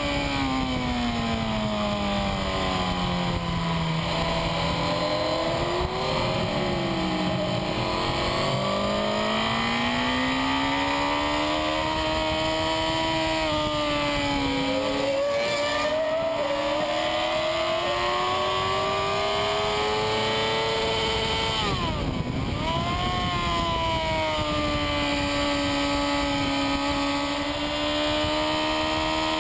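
Racing superbike engine heard from an onboard camera at track speed, with wind rush over it. The engine note falls for the first few seconds as the bike slows for a corner, then climbs steadily under acceleration. About 22 seconds in it dips sharply and briefly, then rises again and holds.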